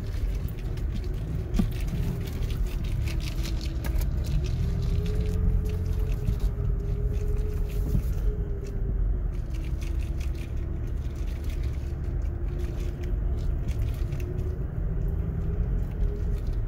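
Pickup truck engine pulling slowly in four-wheel-drive low range, heard from inside the cab: a steady low rumble with a whine whose pitch drifts up and down a little. Faint ticks and crackles of the tyres rolling over gravel run through it.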